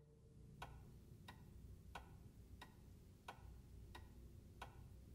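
A clock ticking faintly and evenly, about three ticks every two seconds, over a low hum.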